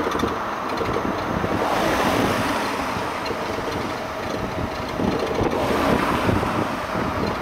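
Steady wind noise on the microphone over the running of an open electric tourist train. It swells a little about two seconds in and again near the end.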